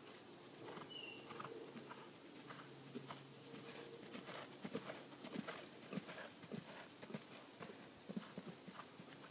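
Hoofbeats of a grey horse cantering on sand arena footing, irregular dull thuds that grow louder about halfway through as the horse passes close.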